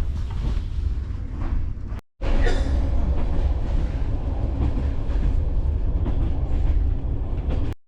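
BDZ passenger train carriage rolling along the track with a steady low rumble. It cuts out briefly about two seconds in, then comes back louder with a short high-pitched squeal.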